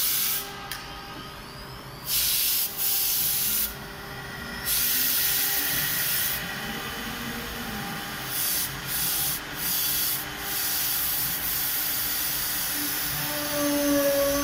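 Three-spindle CNC router's spindle cutting a wooden board, a rasping cutting noise that comes in several short bursts and then runs nearly continuously in the second half.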